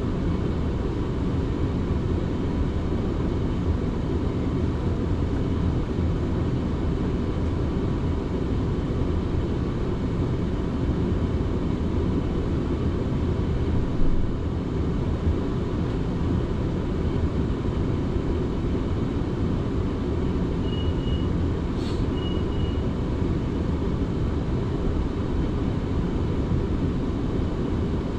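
South Western Railway passenger train running between stations, heard as a steady low rumble from inside the carriage. There is a brief knock about halfway through, and a couple of short faint high tones with a click near the end.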